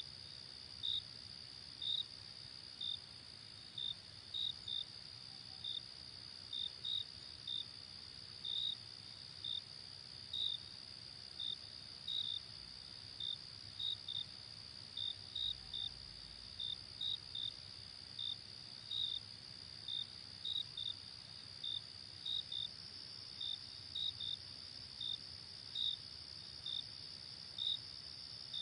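Field crickets: a steady high trill from the chorus, with a louder cricket's short chirps over it, irregularly about one and a half a second.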